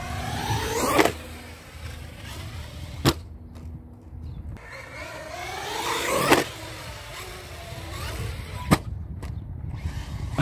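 Electric motor whine of a 6S RC monster truck, climbing in pitch as it accelerates, twice. Each run is followed about two seconds later by a single sharp knock.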